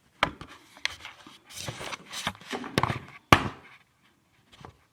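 Hands handling skincare products: a series of sharp clicks and taps with short rustling between them, the loudest click a little past three seconds in.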